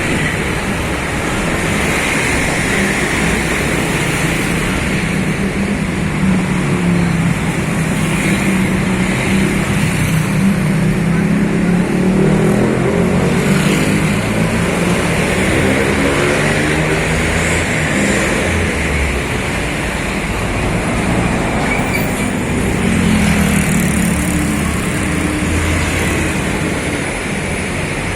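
Steady highway traffic noise as buses and other heavy vehicles drive past, engine pitch sliding up and down as each one goes by, most clearly about halfway through and again near the end.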